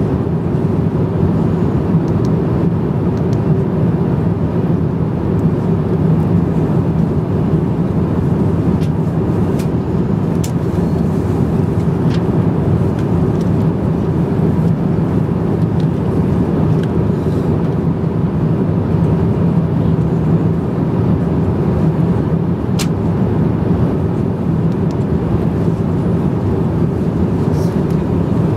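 Steady economy-cabin noise of an Airbus A350-900 in cruise: a constant low rumble of airflow and its Rolls-Royce Trent XWB engines, with a few faint clicks.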